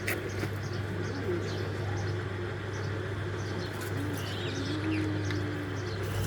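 Small birds chirping with a pigeon or dove cooing a few times, over a steady low hum.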